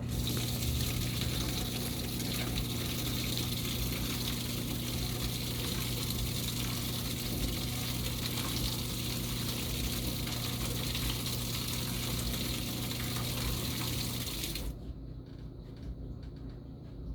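Washing machine running water through with a steady electrical hum, as its valve or pump works; the water and hum stop suddenly about fourteen seconds in.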